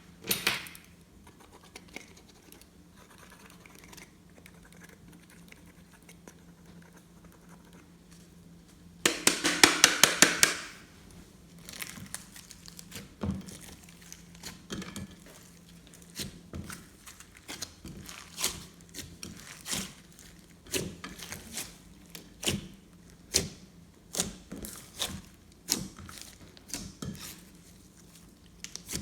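Slime being worked by hand: a loud rapid run of crackling pops about nine seconds in, then irregular sticky clicks and pops once or twice a second.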